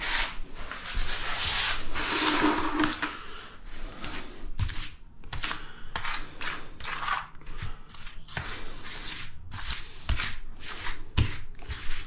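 Hand tool rubbing and scraping across ceramic subway tiles while the joints are grouted: a continuous scrape for the first few seconds, then short separate strokes, about two a second.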